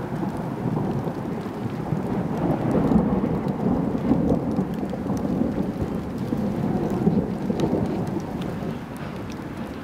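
Long rolling rumble of thunder that swells about a second in and eases off near the end, with faint scattered ticks of raindrops.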